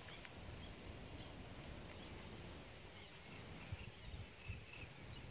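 Quiet outdoor ambience with faint, scattered bird chirps and a few soft low thumps in the second half.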